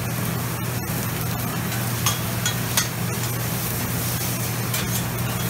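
Meat and vegetables sizzling on a Mongolian barbecue flat-top griddle, with a few sharp clinks of metal spatulas on the griddle, over a steady low hum.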